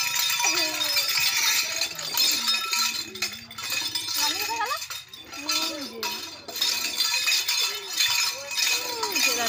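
Domestic pigeons cooing: a series of short low calls, each rising and falling in pitch, over a steady high hiss.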